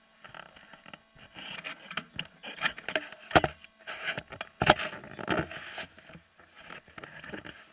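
Close handling noise: irregular scuffs and rustles right at the microphone, with two sharp knocks, about three and a half seconds in and again just before five seconds in.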